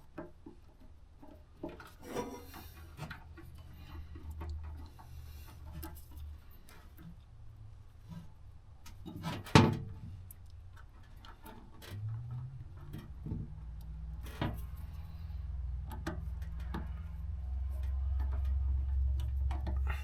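Small clicks and handling noises of wiring being worked on, wire terminals and tools, with one sharp snap about ten seconds in, over a low steady hum.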